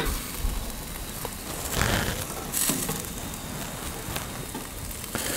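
Pork shashlik on skewers sizzling over glowing charcoal, with the embers crackling and giving a few sharp pops.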